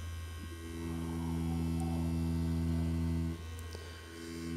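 Rotary pen tattoo machine running with a steady hum as its needle works lines into practice skin. The hum thins out twice: briefly at the start, and for about a second just after three seconds in.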